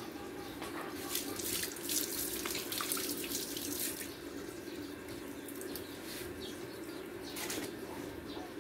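Water running from a tap and splashing, as at a sink, with irregular splashes heaviest in the first few seconds.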